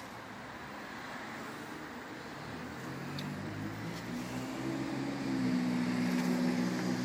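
A vehicle engine humming steadily, fading in and growing louder over the last few seconds, over outdoor background noise.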